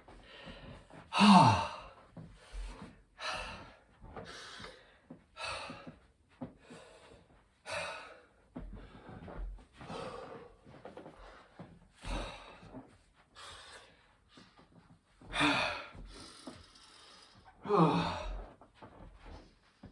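A man breathing hard and gasping from exertion during a set of 5-pump burpees, with short rasping breaths about once a second. Two loud voiced exhales fall in pitch, about a second in and near the end.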